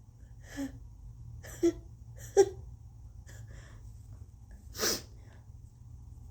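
A few short sniffs and catching breaths through a congested, runny nose while it is being tickled to provoke a sneeze. The sharpest comes about two and a half seconds in, followed by a longer, noisier breath about five seconds in.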